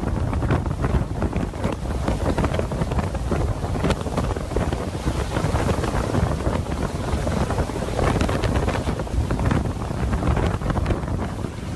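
Hurricane wind gusting hard and buffeting the microphone with a dense, loud rush that swells and dips.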